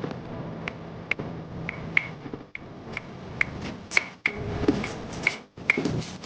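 A series of irregular sharp taps, about two or three a second, each with a brief high ring.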